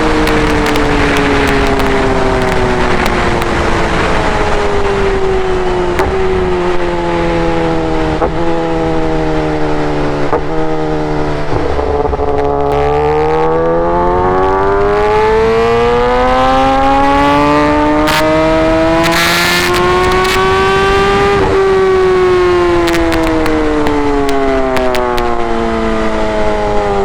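Kawasaki ZX10R's inline-four running through an SC Project full-system exhaust under way. The engine note falls for about twelve seconds as the bike slows, with small ticks along the way. About halfway through it climbs steadily for some nine seconds, then falls away again near the end.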